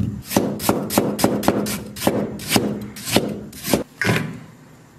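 Cleaver chopping fresh ginger on a wooden chopping board: a quick, steady run of about three chops a second that stops about four seconds in.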